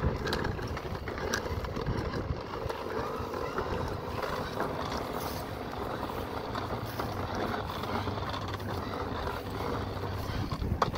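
Plastic toy bubble lawnmower pushed steadily over a concrete sidewalk, its plastic wheels and works giving a continuous rolling noise.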